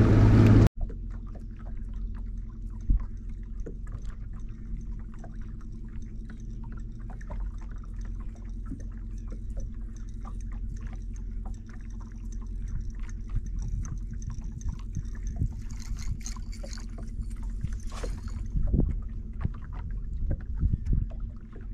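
Less than a second of loud outboard engine and wind noise cuts off sharply. It gives way to the steady hum of a bass boat's electric trolling motor, with small water splashes against the hull and scattered light clicks.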